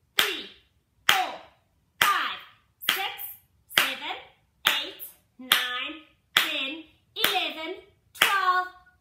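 Hand clapping in a steady rhythm, about one clap a second, ten claps in all, each followed by a number counted aloud in a sing-song voice.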